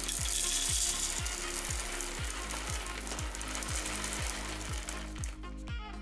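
Whole coffee beans poured from a bag into the burr grinder's bean hopper: a dense rattling patter, heaviest early on, thinning out near the end. Background music with a steady beat plays underneath.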